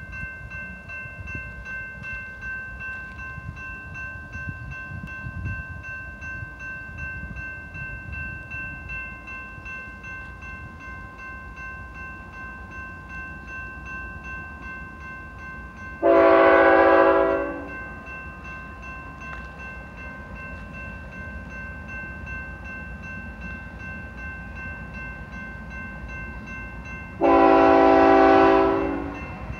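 Air horn of an approaching BNSF freight locomotive, sounded twice: a blast of about a second and a half roughly halfway through, and a slightly longer one near the end. Underneath runs a steady low rumble with a few faint steady high tones.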